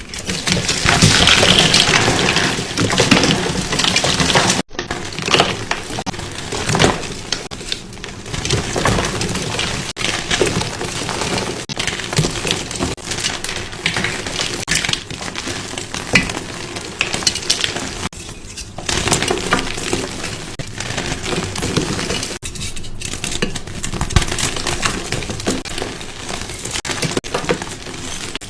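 Gym chalk being crushed: a dense, crispy, crunchy run of crackling and crumbling, with a brief drop-out about four and a half seconds in.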